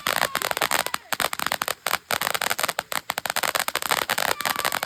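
Fireworks crackling: a dense, rapid run of small sharp pops and crackles that goes on without a break.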